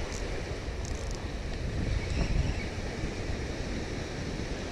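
Wind rumbling on the microphone over small waves washing onto the beach.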